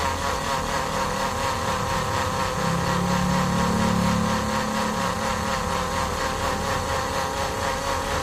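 Electric spice blender running steadily with water in the jar. This is a long leak test of its repaired blade assembly, whose worn bushing has been replaced with a bearing. A deeper hum swells for a couple of seconds in the middle.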